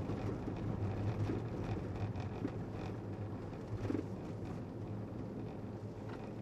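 Steady low rumble under a noisy outdoor background, with a few faint crackles.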